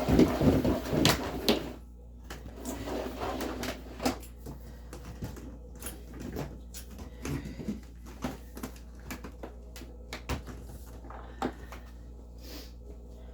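Handling noises: dense rustling and knocking for the first two seconds, then scattered light clicks and knocks as things are moved about.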